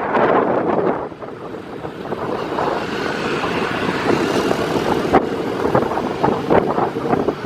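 Road and wind noise from a moving vehicle, heard from a rider on board, with wind buffeting the microphone. The noise dips about a second in, then builds again, with short irregular knocks and gusts later on.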